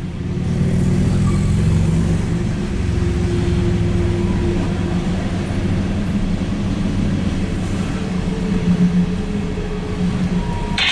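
Empty coal cars of a CSX freight train rolling past, a steady low rumble of wheels on the rails, heard from inside a car.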